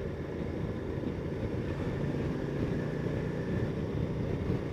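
Ducati Multistrada 1260 S's 1262 cc L-twin engine running steadily while the motorcycle is ridden.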